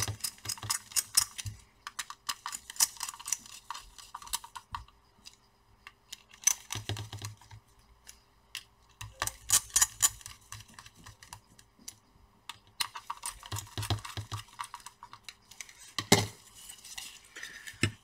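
Small screwdriver driving screws into a graphics card's metal backplate, making bursts of rapid small clicks a second or two long with short pauses between, as screws are tightened one by one. A single louder knock about sixteen seconds in.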